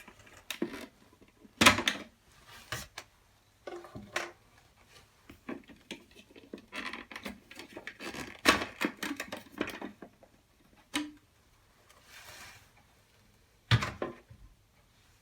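Irregular clicks, knocks and rustling from a ventilation fan's cover and filter being handled during an inspection, with three louder knocks standing out.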